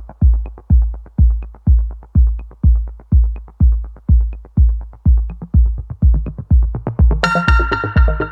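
Electronic background music: a steady deep kick drum about twice a second, with a bright synth chord coming in about seven seconds in.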